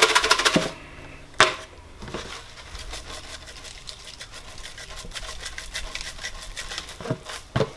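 A seasoning shaker shaken over fish fillets in a plastic bowl, a fast rattling patter of the seasoning, with a single sharp click about a second and a half in.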